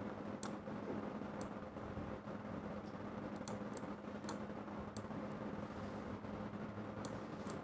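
Faint, scattered clicks of a computer mouse button, about ten in all, as pencil strokes are drawn one after another, over a steady low hum.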